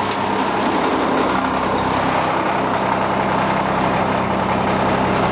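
Small engine of a miniature railway locomotive idling steadily, a constant low hum.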